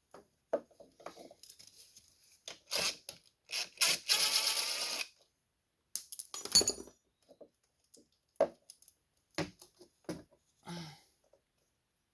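Metal tools and parts clinking and clattering as they are handled and set down. About a third of the way in comes a steadier rasping sound lasting about a second, and there is a sharp knock a little after the middle.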